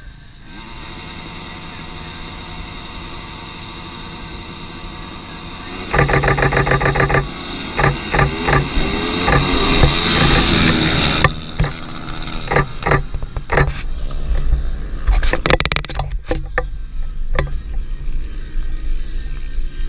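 A pack of supermoto race motorcycles approaches and passes, the engines swelling and then revving with changing pitch. Over them a DSLR shutter fires close by in rapid bursts of about eight shots a second, first about six seconds in and again around fifteen seconds.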